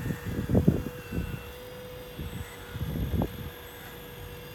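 A 1/14-scale RC Volvo EC360 model excavator's hydraulic pump whining steadily as the boom and arm lower the empty bucket from the trailer into the sand, with uneven low thumps and rumbles, strongest about half a second in and again around three seconds in.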